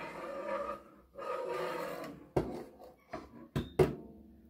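Handling noises at a sewing machine: two rough rubbing, rustling stretches of about a second each, then a few sharp clicks.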